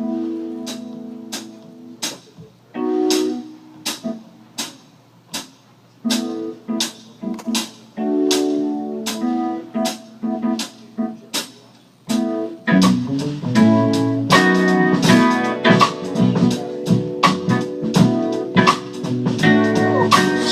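Live band playing an instrumental song intro: guitar chords over a steady percussive beat. About twelve seconds in, the music turns louder and fuller, with deep bass added.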